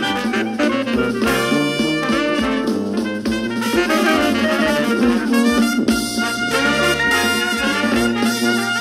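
Background music: a jazzy tune with horns over a steady beat.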